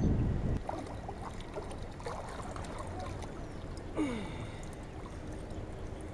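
Creek-side outdoor ambience. A low rumble fades out about half a second in, leaving a quiet background with faint scattered clicks. A short call falls in pitch about four seconds in.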